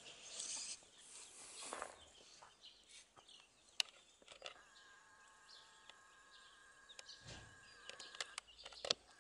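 Faint outdoor ambience in a vineyard. A steady, even buzzing hum comes in about four and a half seconds in, with scattered small clicks and a few faint chirps.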